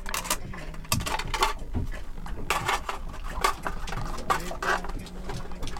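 Handling of breakfast things: a spoon and plastic tubs and bowls clicking and scraping irregularly, with a steady low hum underneath.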